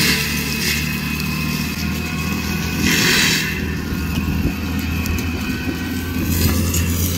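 Cat 299D3 XE compact track loader's diesel engine running steadily under load while its brush-mulcher head works, with a brief louder rush about three seconds in.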